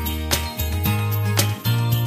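Instrumental background music with a bass line that changes note every half second or so and a regular beat of sharp strikes.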